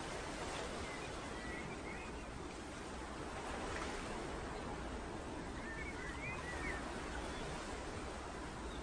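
Steady rush of sea surf, with a few short, faint bird chirps about two seconds in and again around six seconds.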